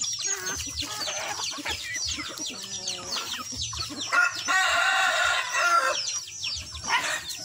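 Free-range chickens clucking with many quick, high, falling chirps. About four seconds in, a rooster crows once, a call of about two seconds.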